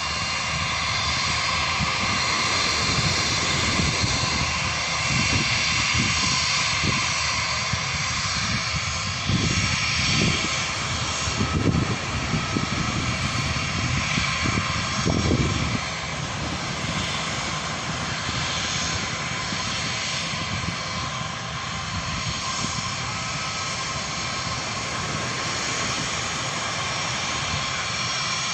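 Jet airliner engines running loud and steady as a plane passes close by, a dense rushing noise with steady whining tones. Gusts of wind buffet the microphone through the first half.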